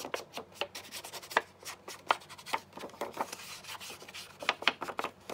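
Ink pad or ink applicator rubbed and dabbed along the edges of paper and card, giving irregular scratchy taps and rubbing strokes.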